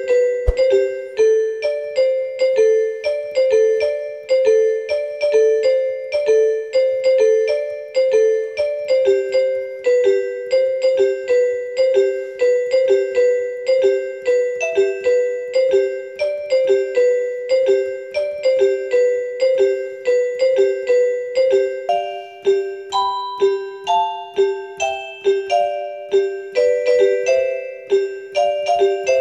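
Background music: a light keyboard tune of short, evenly repeated notes over a steady repeating low note, the melody moving higher about two-thirds of the way through.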